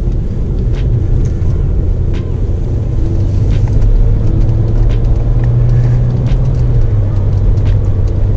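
BMW 335i's turbocharged straight-six and road noise heard from inside the cabin while driving, a steady low drone that grows a little louder about halfway through.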